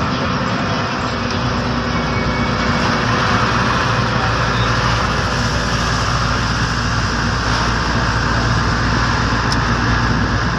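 Engine and road noise heard from inside a moving vehicle: a steady rumble of the engine under a constant hiss of tyres and air.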